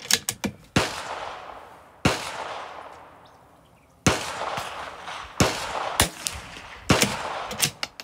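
Several .22 LR rifle shots from a Bergara B14R bolt-action rifle firing SK Rifle Match, each a sharp crack with a fading echo, irregularly spaced, with lighter clicks between them.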